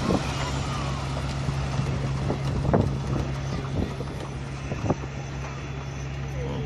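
Steady low mechanical hum, like a distant idling engine, with wind buffeting the microphone and a few faint knocks.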